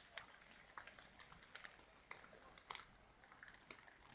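Near silence, with faint irregular ticks and patters a few times a second.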